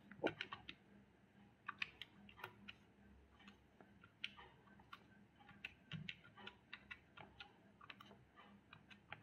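Faint, irregular clicks of the plastic keys of a Casio scientific calculator being pressed one at a time while a calculation is keyed in.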